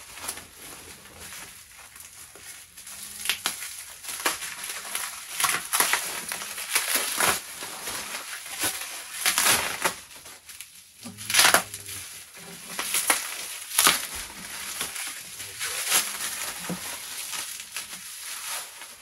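Plastic bubble wrap crinkling and rustling in irregular loud crackles as it is pulled off and crumpled by hand.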